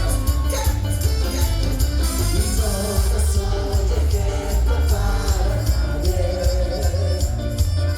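Live band music in a Latin dance style: a singer over a heavy, steady bass line and evenly repeating percussion.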